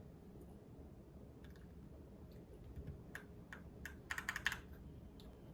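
Mechanical keyboard clicking as keycaps are fitted and keys pressed on a Keychron Q1 with Keychron K Pro Brown tactile switches: a few scattered clicks, then a quick run of clacks about four seconds in.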